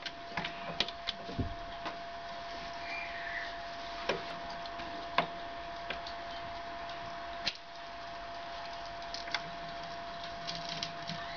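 Dual 1004 record changer running its automatic start cycle: a push-button press, then clicks and knocks from the mechanism as the tonearm lifts, swings out over the record and sets down at the edge, where a small rubber wheel senses the record size. A steady hum runs underneath, and the loudest knock comes about five seconds in.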